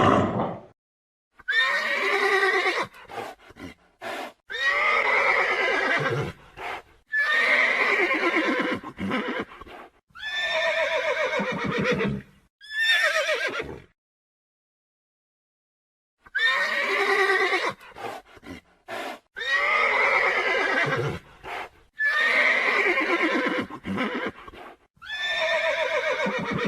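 Horse neighing again and again: about nine whinnies of one to two seconds each, each falling in pitch, with a short silence about halfway through.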